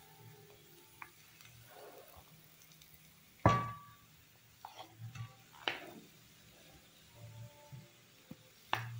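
Wooden spoon scraping thick chutney out of a bowl into a non-stick pan, knocking against the bowl's rim and the pan. There are three sharp knocks with a brief ring, about a third of the way in, a little past halfway, and just before the end, with softer taps and scrapes between them.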